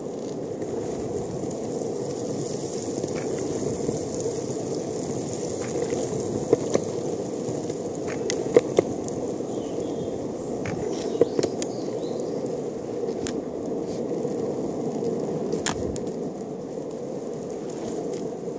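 Longboard wheels rolling steadily over asphalt, a continuous rumble, with a few sharp clicks scattered through it.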